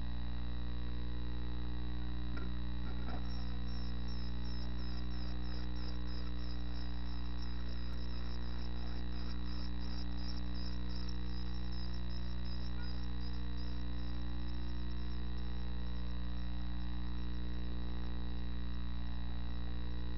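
Chickadee nestlings begging: rapid, short, high-pitched chirps that start about three seconds in, with a few scratchy clicks, and go on for about ten seconds before fading. A steady low hum lies beneath.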